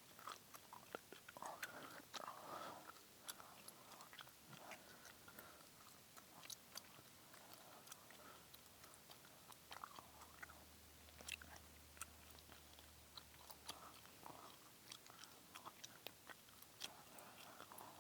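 Quiet gum chewing: irregular wet clicks and smacks of the mouth working a piece of chewing gum.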